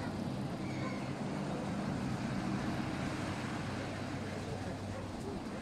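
An engine running steadily, a low hum over a haze of background noise.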